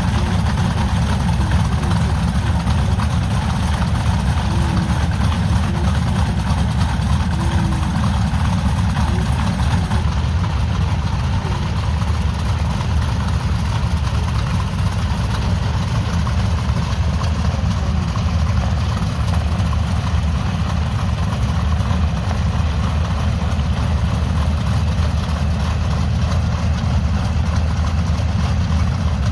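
The two piston engines of a Dassault Flamant, SNECMA Renault 12S inverted V12s, running steadily together on the ground with their propellers turning.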